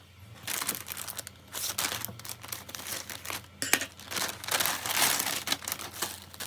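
Plastic packaging crinkling and rustling in quick, uneven crackles as it is handled and opened.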